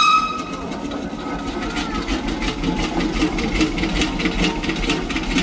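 Workshop machinery running with an even mechanical clatter of about three clicks a second over a low rumble, and a high ringing tone at the start that dies away within about two seconds.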